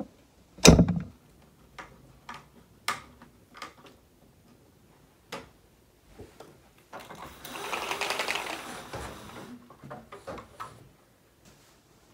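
Household handling noises: a loud thump about half a second in and scattered clicks and knocks, then about two seconds of rattling in the middle as horizontal window blinds are pulled open.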